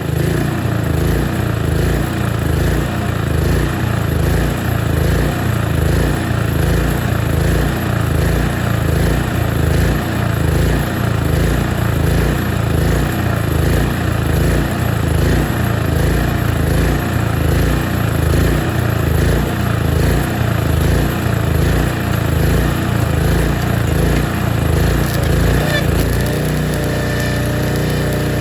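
Engine of a Shindaiwa EGW185M-IST soundproofed engine welder/generator running loudly, its note pulsing unevenly, then settling to a steadier note about 26 seconds in. This is a welding test of a machine that had been submerged.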